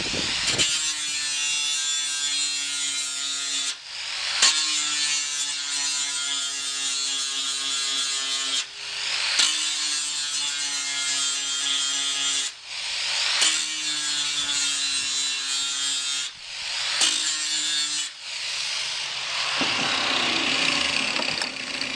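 Electric grinder grinding through a steel spot weld on a car door's bottom flange. It runs in about five passes of three to four seconds each, with brief breaks between them.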